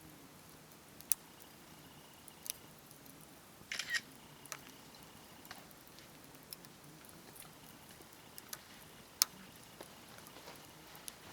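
Wood campfire crackling: sharp pops and snaps scattered every second or so over a faint steady hiss, with a quick run of crackles about four seconds in.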